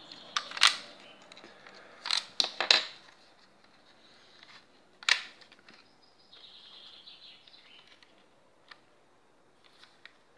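Lego plastic clicking and knocking as a brick-built pistol and its magazine are handled: several sharp clicks in the first three seconds, one more about five seconds in, then a couple of faint ticks near the end.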